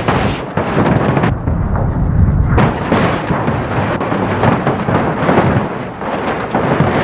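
Water rushing and splashing loudly and continuously as muddy toys are rinsed, with a heavy low rumble.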